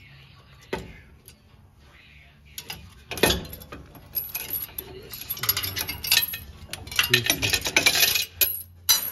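Metal clinking and rattling as a chain puller is worked on the front axle shaft to pull it back out, with a sharp knock about three seconds in and a dense run of rapid clicks and clatter in the second half.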